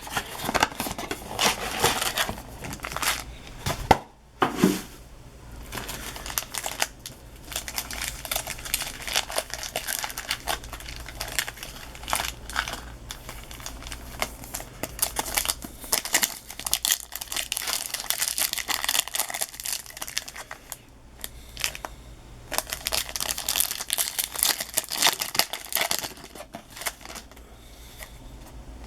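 Trading-card pack wrappers crinkling and tearing as baseball card packs from a blaster box are ripped open and handled, with many small crackles and clicks. There is a short pause about four seconds in, and the handling gets quieter near the end.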